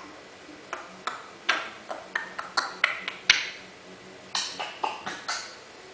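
African grey parrot making a quick run of short clicks and chirps, with one especially sharp click a little past three seconds, then a second cluster of clicks about four and a half seconds in.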